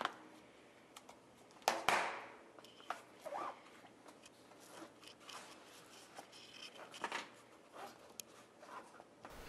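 Bicycle tyre bead being worked along the rim by hand: faint, scattered rubbing and light clicks of rubber against the metal rim, loudest about two seconds in.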